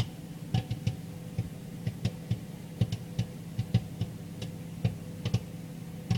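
Microwave popcorn popping inside the bag in a running microwave: irregular sharp pops, about two or three a second, over the oven's steady hum. The popping is still fast, so the popcorn is not yet done.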